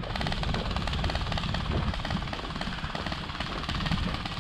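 Rapid clatter of airsoft gunfire, many fast ticks a second with no break, over a steady low rumble.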